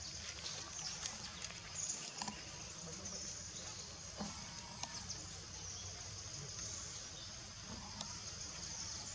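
Steady high-pitched insect chorus with a low rumble underneath, and a few faint clicks and rustles scattered through.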